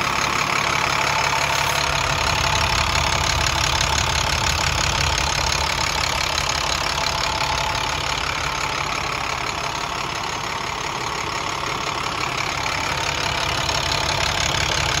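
2008 MaxxForce DT466 inline-six turbo diesel engine idling steadily.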